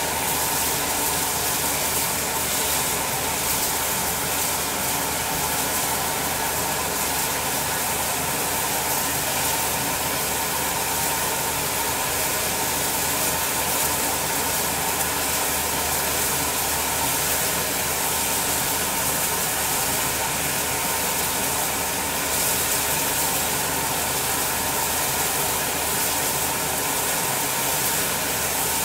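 Bulleid West Country class steam locomotive standing with steam hissing steadily from it, a continuous even hiss with no beats or breaks.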